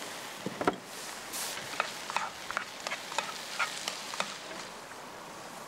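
Diced vegetables and ground beef sautéing in butter and oil in a casserole pot, sizzling as a spatula stirs them, with many short scattered clicks.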